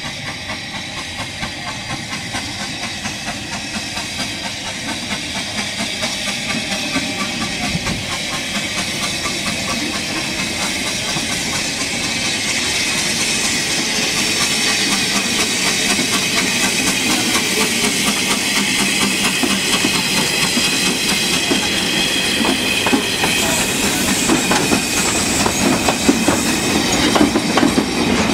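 NG4 4-6-2T two-foot-gauge tank steam locomotive hauling a short freight train, its exhaust chuffing in an even beat that grows steadily louder as it approaches. Near the end the engine and wagons pass close by, their wheels clicking over the rail joints.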